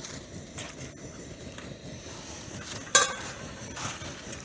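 Liquid-fuel camp stove burning with a steady hiss under a pot of hot water as snow is added to it, with a sharp clink of metal on the pot about three seconds in and a softer knock a moment later.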